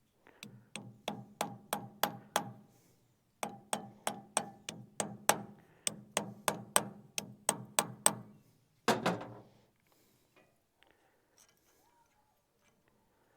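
Hammer striking metal in steady blows, about three a second, in two runs with a short pause between, then one heavier blow about nine seconds in.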